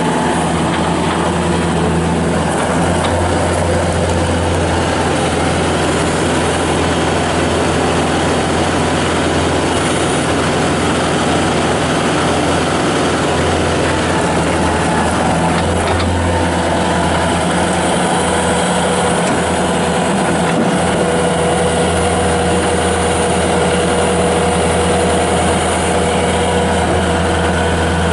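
Bobcat S330 skid steer loader's diesel engine running steadily and loud, with a constant deep drone.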